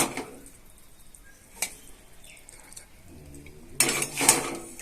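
A spoon clinking and scraping against a pan and plate while cooked noodles are served: a sharp clink at the start, another about a second and a half in, and a longer run of scraping near the end.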